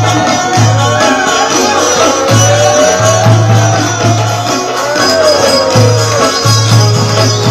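Chitrali sitar folk instrumental: a plucked melody with sliding notes over a rhythmic accompaniment with a repeating low note.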